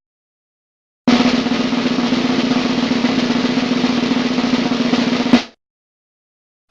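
Snare drum roll lasting about four seconds, ending in a single sharp hit.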